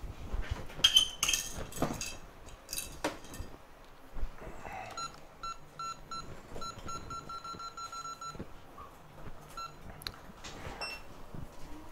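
A run of short electronic beeps from bench equipment, about four a second for some three seconds, with a single beep after. Before the beeps, clicks and light clatter of tools being handled.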